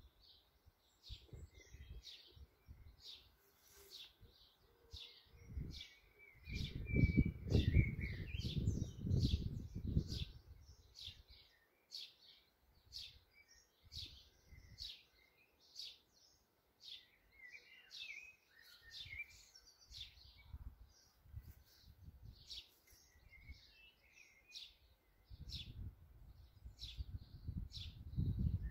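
Sparrows chirping in a steady run of short chirps, two or three a second, while a blackbird sings warbled phrases about a quarter of the way in and again past halfway. Low rumbles, the loudest sound, come and go about a quarter of the way in and near the end.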